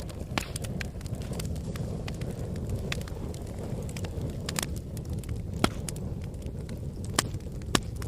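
An open fire crackling, with a steady low rumble and irregular sharp pops, the loudest pops about five and a half, seven and seven and a half seconds in.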